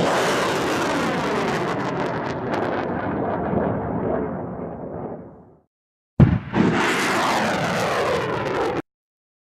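Rocket launch sound effect: a sudden blast of rocket engine noise at liftoff that runs on and fades away over about five seconds. After a short gap the launch sound starts again with a blast and cuts off abruptly near the end.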